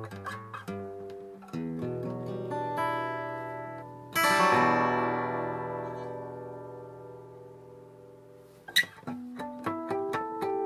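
1975 Yamaha FG-150F acoustic guitar being played: single picked notes, then a full strummed chord about four seconds in that rings out and slowly fades, followed by a sharp plucked attack and more picked notes near the end.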